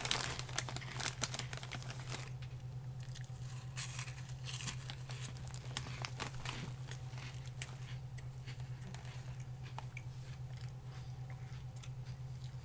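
Crunchy corn-and-potato fry snacks being chewed with the mouth closed; the crunching is densest in the first few seconds and then thins out. The foil snack bag crinkles as it is handled, over a steady low hum.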